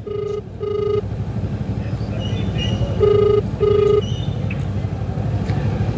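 Phone ringback tone through a smartphone's loudspeaker: an outgoing call ringing at the other end. Two double rings about three seconds apart, each a pair of short buzzing tones, over a steady low background rumble.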